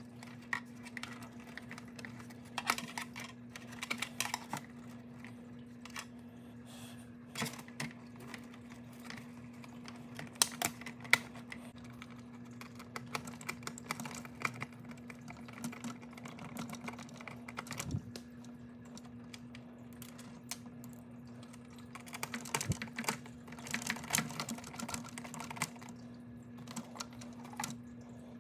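Irregular small clicks and taps of plastic parts and wires being handled, and of a screwdriver driving screws into a singing fish's plastic motor mount. The clicks come in bunches, over a steady low hum.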